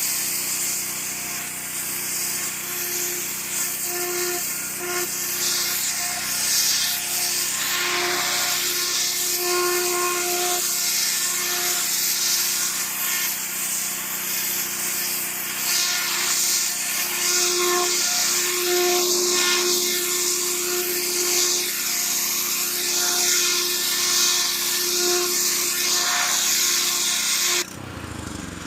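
Pressure washer running and spraying: a steady motor hum under a strong hiss of the water jet, which drops away abruptly near the end.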